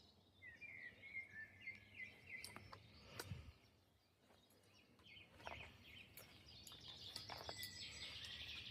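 Faint songbirds singing: a few gliding chirps, then a quick run of repeated chirps in the second half.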